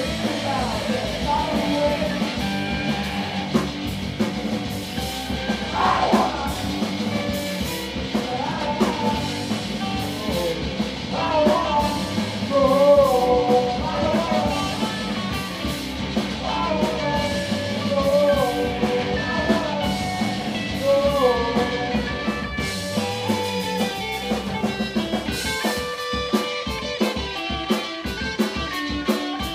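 Live rock band playing a song: two electric guitars and a bass guitar, with a sung lead vocal over them.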